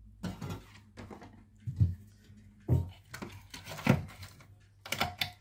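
A metal lid being lifted on a steel box and items rummaged inside: a handful of separate knocks and clatters of metal and plastic, spread out over several seconds.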